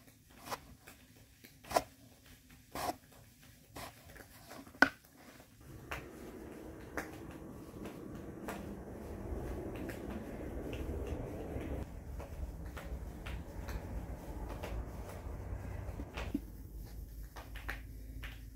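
A plastic dough scraper knocks and chops against a wooden board several times as it cuts dough strips into pieces. After about six seconds there is a steady rubbing as hands roll and press the dough pieces in flour on the board, with an occasional tap.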